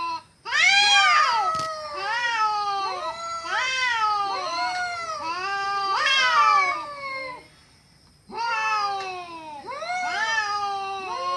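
Cats caterwauling in a fight: long drawn-out yowls that wail up and down in pitch, one after another, with a short pause about two-thirds of the way through.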